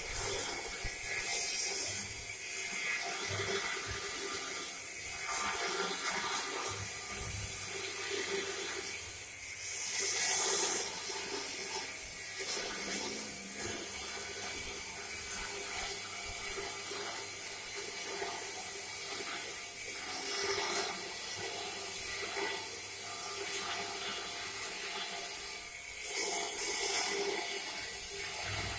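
Motor-driven plate rolling machine running: electric motor, V-belt and chain drive turning the steel rollers as a sheet is rolled into a cylinder, a steady noisy whir with a few brief louder hisses.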